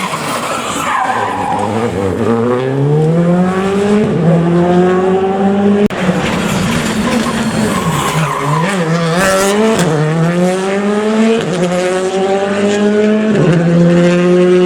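Gravel rally car's engine accelerating hard, its revs climbing and dropping back several times as it shifts up through the gears, with a brief lift in the middle before pulling again.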